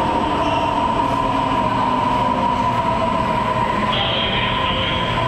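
Subway train pulling into the station and slowing, with a steady electric whine over the running noise of the cars. A higher squeal joins about four seconds in as it nears its stop.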